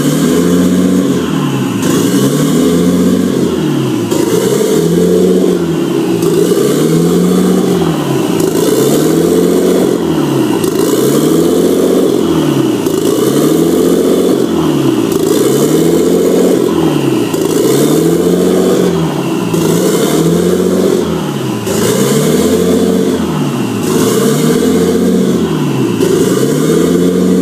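Swapped Nissan RB25 2.5-litre straight-six idling roughly, its revs rising and falling in a steady cycle about every two seconds: a hunting idle that won't settle.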